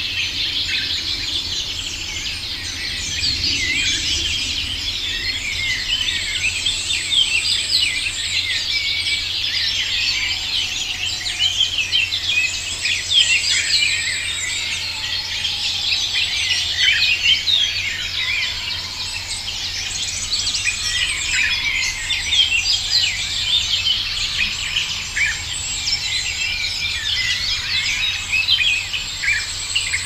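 Dawn chorus: many birds chirping and twittering densely and continuously, overlapping one another. A high thin trill comes and goes every few seconds above them, with a faint low hum underneath.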